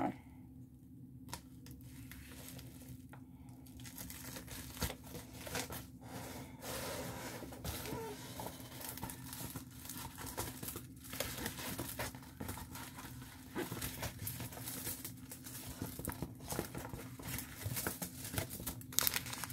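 Plastic packaging crinkling and tearing as a bubble mailer and the plastic sleeve inside it are opened and handled: a busy rustle full of short sharp crackles, quieter for the first second or two.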